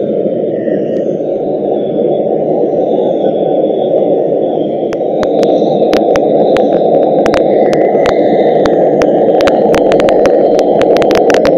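Hand-held gas blowtorch running steadily with its flame inside a firebrick hearth, heating steel parts for hardening. From about five seconds in, sharp crackling clicks of electrical interference, set off by the heating, break into the recording and come thicker and faster toward the end.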